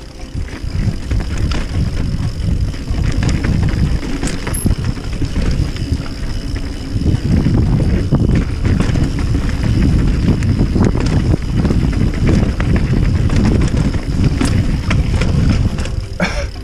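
Mountain bike riding fast down a dirt singletrack: a loud, continuous rumble of knobby tyres over the ground, with the chain and frame rattling and knocking over roots and bumps.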